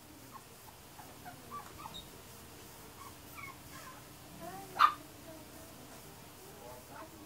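Puppies whimpering in short, high little whines, with one sharp yip a little under five seconds in.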